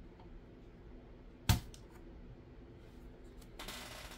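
Desoldering iron sucking solder from a circuit board's solder pads to free an old capacitor. There is one sharp click about a second and a half in and a short hiss near the end.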